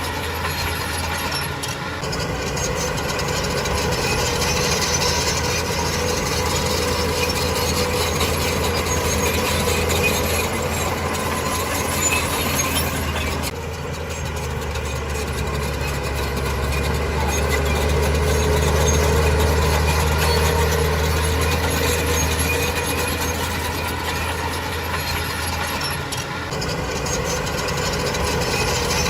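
Heavy diesel engine of an earthmoving machine running with a steady low drone. It grows louder for a few seconds past the middle, then settles back.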